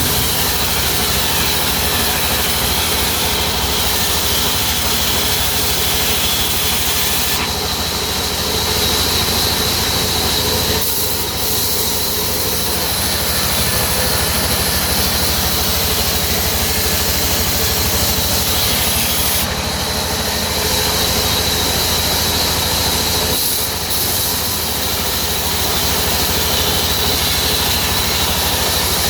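Sawmill saw running and cutting wood: a loud, steady hiss over a low hum, with a steady high whine on top. The sound shifts a few times, as at the start or end of a cut.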